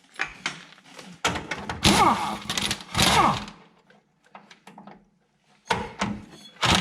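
Old rear shock absorber being worked off its mounting stud: two spells of metal scraping with falling squeals, then a few sharp knocks near the end.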